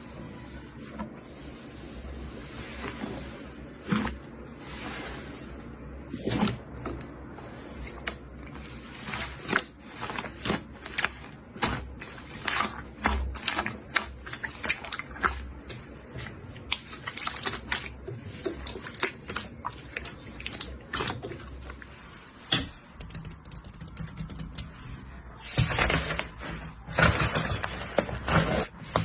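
Slime being squeezed and worked by hand: a run of small wet clicks and pops, sparse at first and coming thick and fast in the middle, with a louder, denser stretch of popping near the end.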